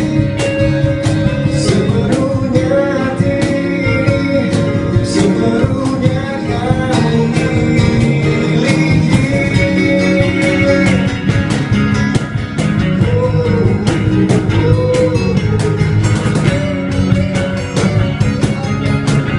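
Live band music: a male singer at a microphone over strummed acoustic guitar and electric bass guitar, playing without a break.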